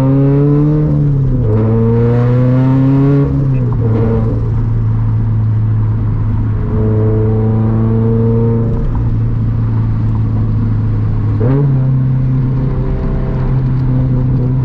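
Turbocharged Scion FR-S flat-four engine through a custom titanium center-exit exhaust, with a deep note, pulling through the gears: the pitch climbs and drops at upshifts about one and a half and four seconds in, with a short sharp sound at the second shift. It then holds a steady lower note before the revs step up sharply about eleven and a half seconds in.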